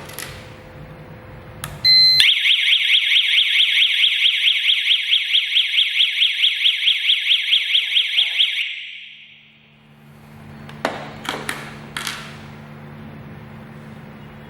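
GSM home alarm system siren sounding: a short beep, then a loud, fast-warbling electronic wail of about five sweeps a second for roughly six seconds, which fades out. A few sharp clicks follow near the end.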